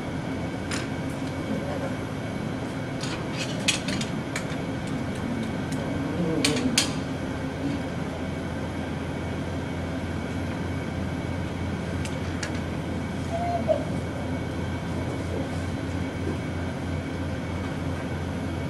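Steady room hum with a constant droning tone, broken by a few sharp taps and clicks about 4 and 7 seconds in, and a faint brief vocal sound now and then.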